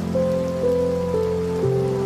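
Steady rain falling, with soft ambient music over it: a slow melody of held notes stepping down about every half second above sustained low tones.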